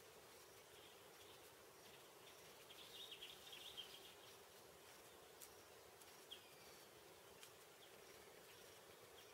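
Faint rainforest ambience: an insect calling in a high, even pulse about twice a second, with a brief burst of chirping about three seconds in, a single falling call a little past the middle, and a few faint clicks.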